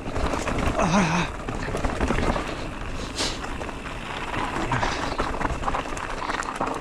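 Haibike SDURO FullNine 4.0 electric mountain bike rattling and knocking as it rides over roots and stones, with clicks from the drivetrain and frame, plus a brief vocal sound from the rider about a second in.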